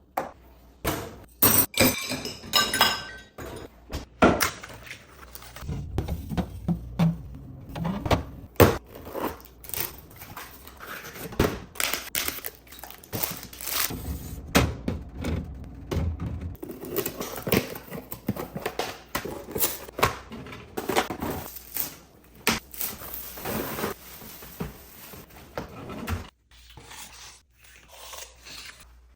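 Containers and dishes being handled and set down: irregular knocks, clinks and clatter, with rustling in the middle stretch.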